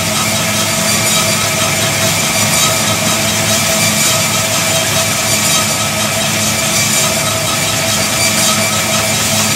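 Easy Up Power treadmill running at a steady walking pace: a steady motor-and-belt hum with several steady tones over it.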